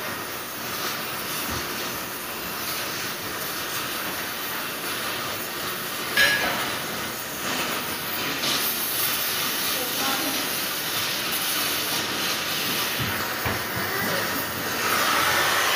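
Stick (arc) welding on steel: the electrode's arc crackling and hissing steadily, with a single sharp crack about six seconds in and a louder stretch near the end.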